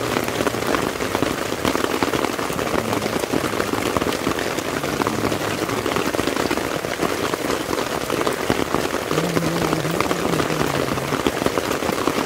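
Heavy rain drumming steadily on a tent's fabric fly, a dense patter of drops heard from inside the tent.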